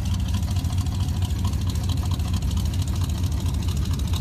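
1981 Chevrolet C10 pickup's engine idling steadily, its low exhaust note coming from the tailpipe ahead of the rear wheel; the engine carries a performance camshaft.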